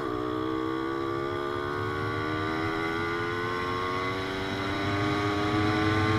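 Puch Magnum moped's two-stroke ZA50 engine under way, accelerating hard: the engine note dips right at the start, then climbs steadily and grows a little louder near the end.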